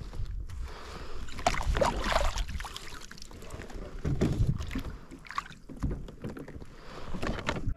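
Open-water kayak sounds: wind rumbling on the microphone and water lapping at the kayak hull, with a few short knocks and rustles.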